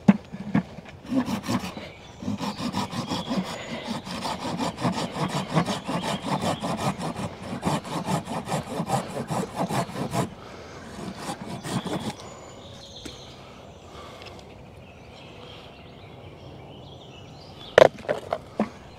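A hand-held folding pruning saw cutting through a wooden branch in quick, regular back-and-forth rasping strokes, which stop about ten seconds in. A few sharp knocks come near the end.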